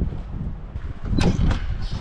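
Wind rumbling on the microphone, then two sharp knocks a little over a second in and a short rattle near the end: boots stepping onto the hut's wooden deck and the door handle being gripped.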